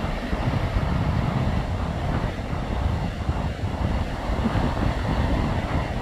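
Wind noise on the microphone over small waves washing against the boulders at the water's edge, steady with no distinct events.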